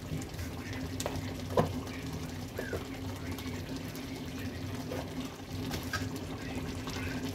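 Curry simmering in an open aluminium pressure cooker on a gas stove: bubbling with scattered small pops over a steady low hum, and one sharp click about a second and a half in.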